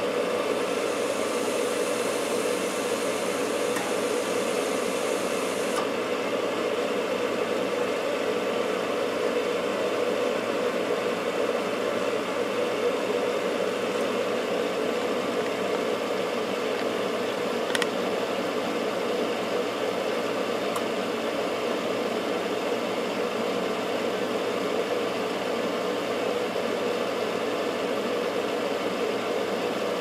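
Bryant gas furnace's draft inducer motor running with a steady hum while unlit gas hisses through the open gas valve for about the first six seconds, then the hiss cuts off suddenly. The burners never light because the hot surface ignitor does not heat up: a bad ignitor, error code 34. A single sharp click comes a little past halfway.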